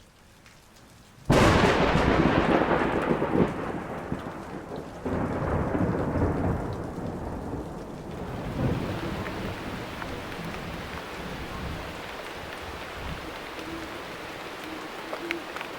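Thunderstorm: a sudden loud thunderclap about a second in that rumbles away over several seconds, a second rumble about five seconds in, then steady rain.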